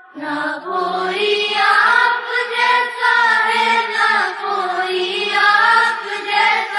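A naat, an Islamic devotional song, sung in long, wavering melodic phrases.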